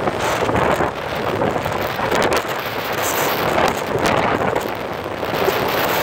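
Wind buffeting the microphone on a fast-moving motorboat, over the steady noise of the outboard motor and rushing water of the wake.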